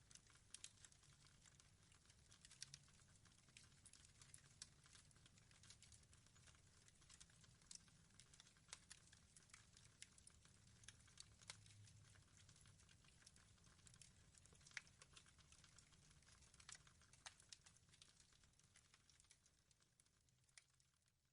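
Faint crackling of a fire: irregular small pops and clicks over a low rumble, fading out near the end.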